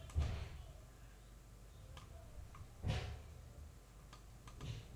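Quiet room tone with three short, soft noises: one at the start, one about three seconds in and one near the end.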